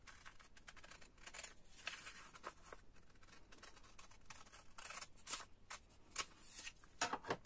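Scissors cutting along a fold in a sheet of paper: a run of faint, irregular snips, with a few louder cuts near the end.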